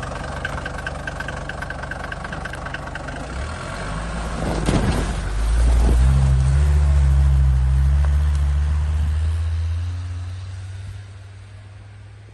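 Mercedes 290 GD's five-cylinder diesel engine driving through deep snow. Its low steady note grows louder as it comes past, is loudest about halfway through, then fades as the vehicle pulls away.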